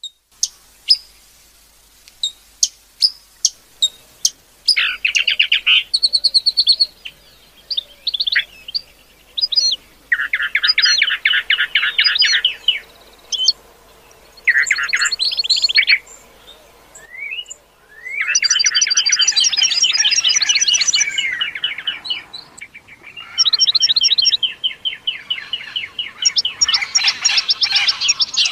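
A recording of several wild bird species calling and singing. Sharp single chips come in the first few seconds, then bursts of rapid chattering trills, and several birds overlap densely in the second half. The birds named for this recording are hummingbird, cardinal, arrocero, sparrows, owl and green parakeets.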